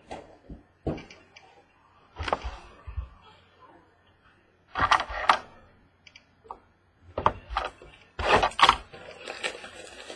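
Trading card boxes being opened and handled: irregular clicks, knocks and short rustling of cardboard and wrappers, with louder handling about halfway through and again near the end.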